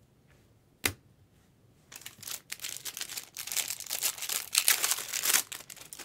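A single sharp tap, then about three and a half seconds of tearing and crinkling as the packaging of a sealed trading card pack is ripped open.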